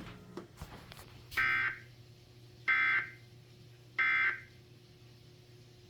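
Three short electronic alarm beeps, each a buzzy high tone lasting under half a second, evenly spaced about 1.3 seconds apart, over a faint steady hum.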